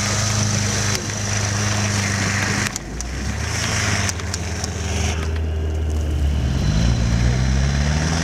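Nissan Pathfinder's engine running hard as its wheels spin in deep snow, with a hiss of churned snow. The revs drop about three seconds in, then climb again near the end.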